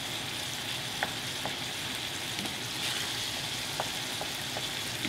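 Crumbled ground meat sizzling steadily as it fries in a pan, with a few light clicks as a utensil stirs and breaks it up.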